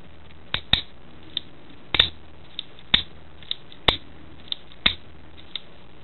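Shimano trigger shifter clicking as its levers are thumbed through the gears: about ten sharp, separate clicks spaced half a second to a second apart. The repaired shifter's ratchet is indexing with no gear cable fitted.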